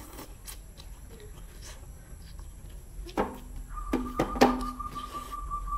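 A short slurp of noodles at the start, then a metal spoon and chopsticks clinking sharply against a ceramic soup bowl four times a little past halfway, the strikes leaving a ringing tone that fades over about two seconds.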